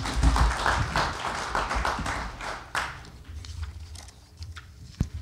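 Congregation applauding, a dense patter of clapping that dies away after about three seconds.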